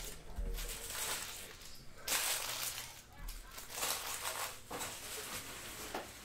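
Foil trading-card pack wrappers crinkling and cards being handled, in several short rustling bursts.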